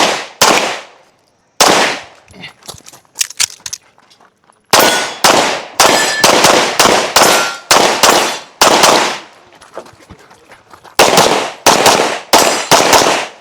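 Pistol shots fired in quick strings, about two or three a second, around twenty in all, with pauses between strings, as a shooter runs a practical-shooting stage. A faint metallic ring follows a few of the shots, typical of steel targets being hit.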